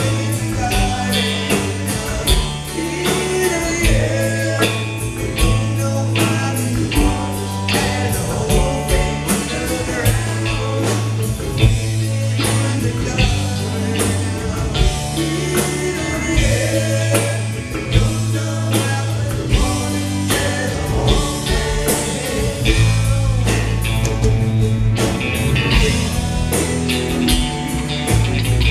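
Live country-rock band playing amplified through a club PA: electric guitars, electric bass and drum kit with a steady beat, and a lead vocal singing over them.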